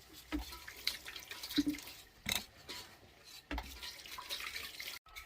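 Irregular splashes and knocks of water being handled, a short one every half second to second or so.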